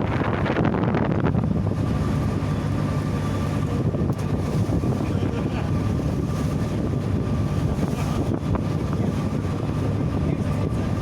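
Wind rushing over the microphone, over a steady low drone. A faint, thin steady whistle comes in about a second in and holds.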